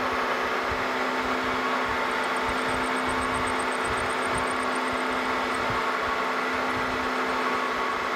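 Milling machine spindle running steadily as a 3/16-inch drill bit cuts down through a brass part. A faint, fast, high-pitched ticking comes in about two seconds in and fades out a little past halfway.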